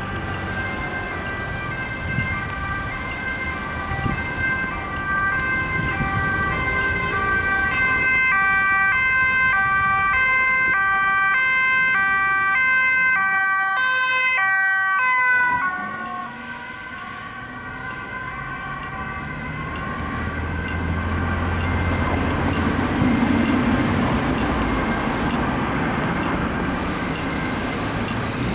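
Ambulance siren on an emergency run, sounding a high-low two-tone pattern over a steady tone and growing louder as it approaches. About halfway through it drops in pitch and stops, leaving road traffic and engine noise.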